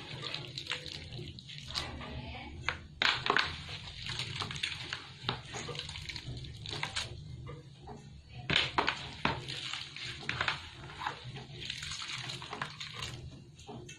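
Wet grated coconut squelching as it is kneaded and squeezed by hand in a basin, with coconut milk trickling out in irregular spurts: the first pressing of coconut milk from the grated flesh.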